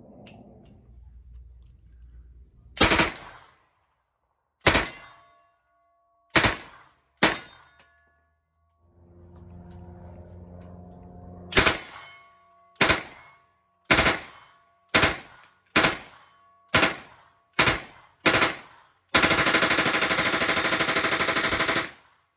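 Gunshots: four single shots from a lever-action rifle, a second or two apart. Then a drum-fed automatic firearm fires eight single shots about one a second, followed by a full-auto burst of about three seconds.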